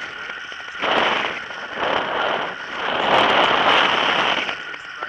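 Airflow buffeting the microphone of a camera on a flying tandem paraglider: a rough, crackling wind rush that surges three times.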